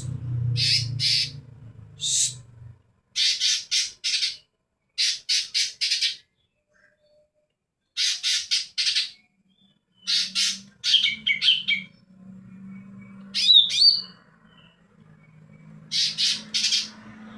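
Green leafbird (cucak ijo) calling: harsh, scratchy notes in quick clusters of three or four with short pauses between, and a few brief sliding whistles about eleven and fourteen seconds in.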